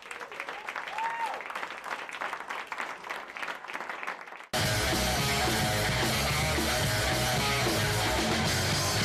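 Audience clapping after a song ends. About four and a half seconds in it cuts off suddenly to louder TV theme music.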